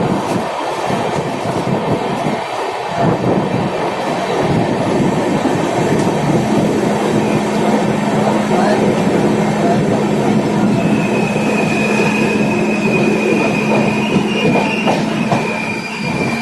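Passenger train coaches running on the track, heard from on board: a continuous rumble with wheel clatter. A steady low hum joins about six seconds in, and a high wheel squeal sounds from about eleven seconds in until near the end.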